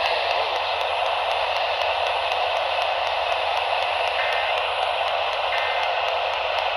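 AM radio receiver hissing with static while tuned to a weak, distant station; faint tones break through briefly about four and five and a half seconds in.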